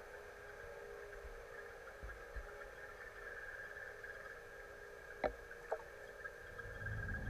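A boat motor heard underwater: a faint, steady whine with a couple of high tones. Two sharp clicks come about five seconds in, half a second apart.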